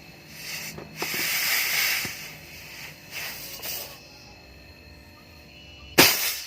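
Pressurised gas hissing in two bursts, with a short, sharp blast of gas about six seconds in, the loudest sound here.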